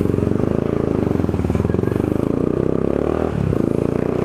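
Yamaha Fazer 250's single-cylinder four-stroke engine running through an aftermarket exhaust. Its note dips briefly a little after three seconds in, then picks up again.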